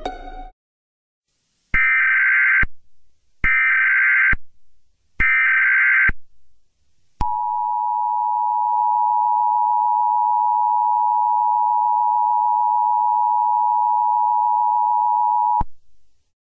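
Emergency Alert System tones: three short bursts of buzzing digital header data, each just under a second and evenly spaced, then the EAS two-tone attention signal held steadily for about eight seconds and cutting off sharply. Together they announce an emergency alert message.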